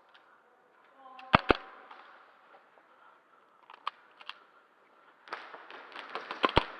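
Airsoft guns firing: two sharp shots about a second and a half in, a few faint distant shots around four seconds, then a quick run of shots near the end.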